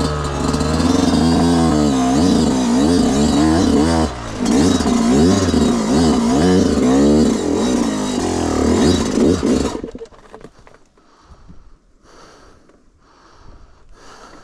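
Yamaha YZ125's single-cylinder two-stroke engine revving up and down hard under riding, with a brief let-off about four seconds in. The engine sound cuts off abruptly about ten seconds in, leaving only faint low sounds.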